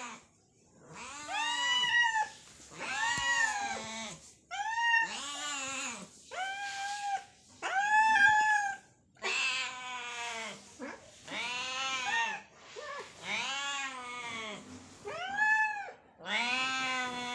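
Two hungry cats, a ginger tabby and a white cat, meowing over and over for food: a string of long meows, each rising then falling in pitch, about one a second, some overlapping, with a longer drawn-out meow near the end.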